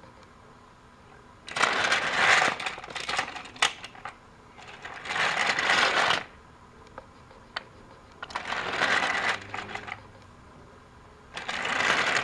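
Plastic Trackmaster toy train wagons rattling past on plastic track, in four bursts of a second or two each with quiet gaps between.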